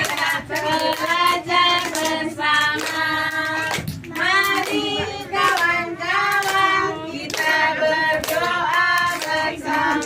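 A group of young children singing a song together and clapping along in time.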